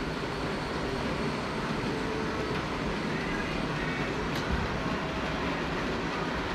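Steady running noise of a model train on the layout's track, with a single sharp click about four and a half seconds in.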